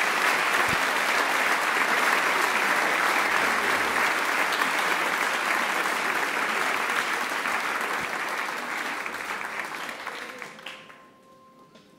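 Concert audience applauding steadily, the clapping dying away about ten to eleven seconds in. As it fades, a faint held tone begins.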